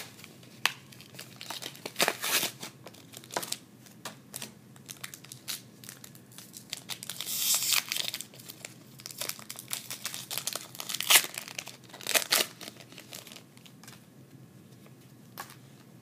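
Trading-card booster pack wrapper being torn open and crinkled by hand: irregular crackles and rips, with a denser stretch about halfway through and quieter handling near the end.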